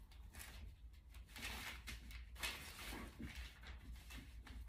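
Faint rustling and light handling of paper pattern pieces as they are pinned onto a dress form, a few soft crinkles scattered through, over a low steady hum.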